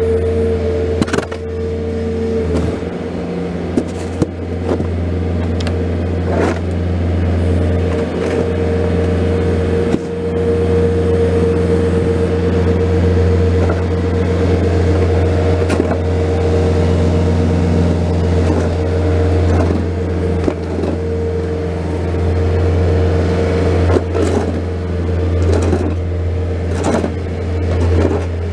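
Bobcat skid-steer loader's diesel engine running steadily while plowing snow, with a number of sharp clanks and knocks along the way.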